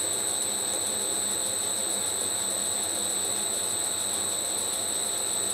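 Smart and Brown 1024 lathe running under power while a form tool takes a light cut in the brass fusee's spiral groove: a steady high-pitched whine over an even hiss.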